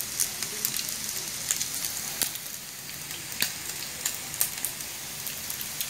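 Beef sausages sizzling in a nonstick frying pan: a steady hiss with scattered crackles and pops.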